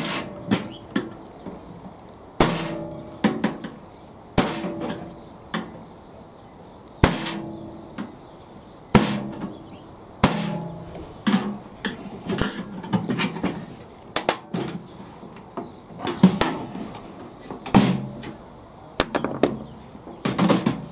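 Irregular sharp metallic knocks and clanks, about one every second or two, each ringing briefly: a screwdriver punching through the tabs of the knock-out turntable-motor panel in a microwave oven's sheet-steel base.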